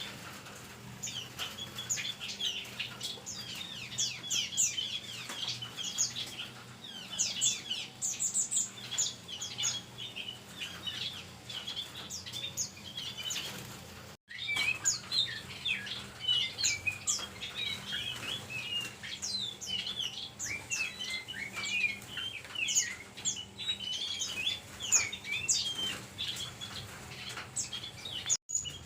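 A mixed flock of small songbirds in a wire aviary chirping and calling at once, many short, high calls overlapping in a busy chatter. The sound cuts out for an instant about halfway through.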